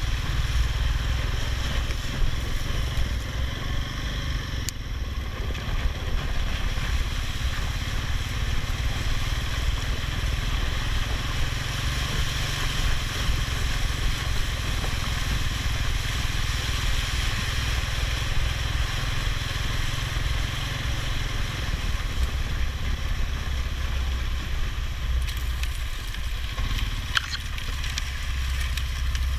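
All-terrain vehicle's engine running steadily as it rides, with a steady hiss over it.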